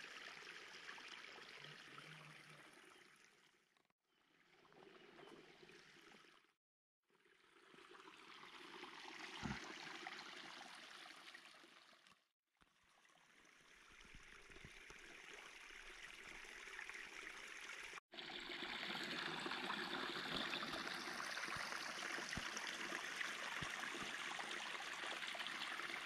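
Faint, steady rushing outdoor noise, near silent at first and louder from about two-thirds of the way in, broken by a few brief dropouts.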